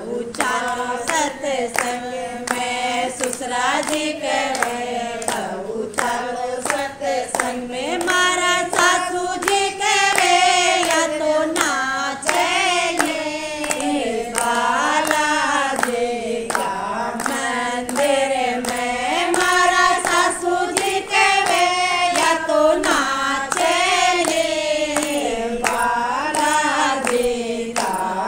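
A group of voices singing a Balaji bhajan (Hindu devotional song), with steady rhythmic hand-clapping keeping time.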